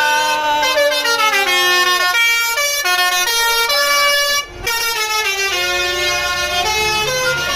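Indonesian bus 'basuri' melody air horn (telolet) playing a tune: a run of held and gliding horn notes, broken by a short gap about four and a half seconds in.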